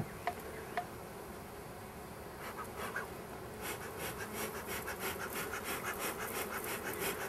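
Honeybees buzzing over an open hive, a steady hum, joined from about halfway by scratchy rustling clicks.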